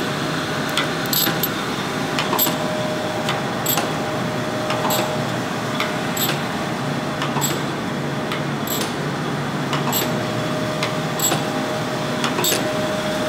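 Jones & Shipman 540 surface grinder running, with a steady hum and a sharp click a little more than once a second.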